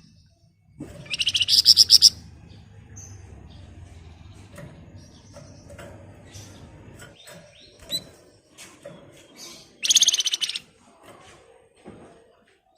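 Flamboyan songbird singing its rapid rattling 'ngebren' trill. Two loud, fast, buzzy rattles come about a second in and again near ten seconds, with softer scattered chirps between.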